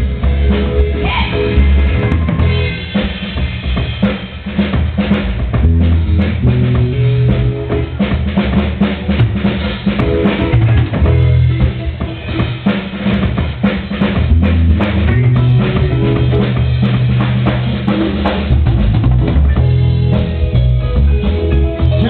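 Live jazz band playing, the drum kit to the fore with snare, rimshots and bass drum in a busy rhythm over a walking electric bass line.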